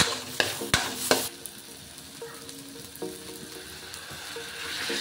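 Metal ladle scraping and knocking against a wok as sliced shallot, ginger and red chili fry in oil, with a light sizzle underneath. The strokes come thick in the first second or so, then thin out to a few light scrapes.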